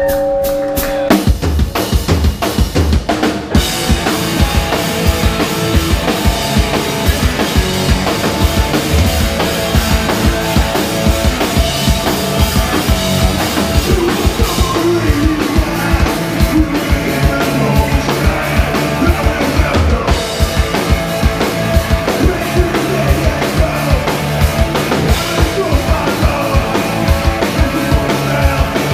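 Punk rock band playing live on electric guitars and a drum kit, loud. A held chord opens, then the full band comes in about a second in with a fast, steady drum beat.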